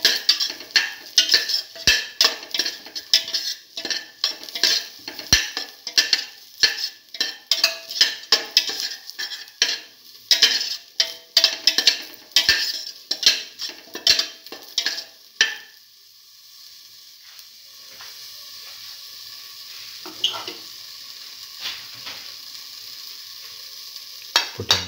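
Spoon stirring and scraping sliced onion, shallots, garlic and ginger frying in oil in a stainless steel pot: quick repeated scrapes over a sizzle. About two-thirds of the way through the stirring stops, leaving a steady sizzle.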